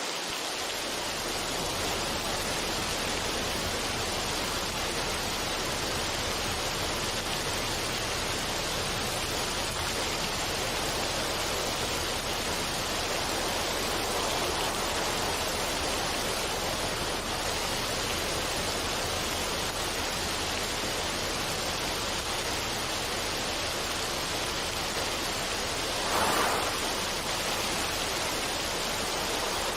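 Running water rushing steadily as an even wash of noise, with a brief louder surge near the end.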